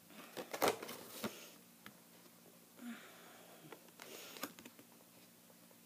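Printed card and paper being handled and flipped: short crackles and taps, in a cluster during the first second or so and again about four seconds in, with a short breath near the middle.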